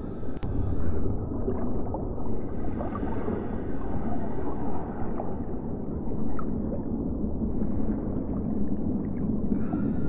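Muffled underwater water sound: a low rumbling wash with scattered small bubbly pops and gurgles. A higher hiss drops away about a second in and comes back near the end.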